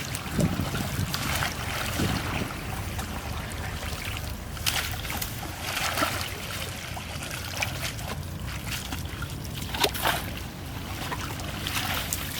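Water trickling and splashing, with a few short, sharper splashes scattered through, over a steady low rumble.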